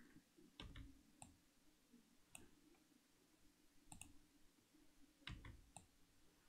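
Faint clicks of a computer mouse, about six single clicks spaced irregularly, with near silence between them.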